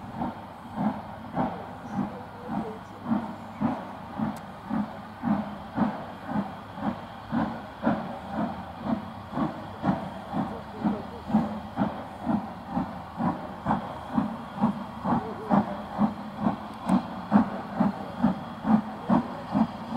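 Steam locomotive working a train, its exhaust chuffing in even beats, about two a second and gradually quickening.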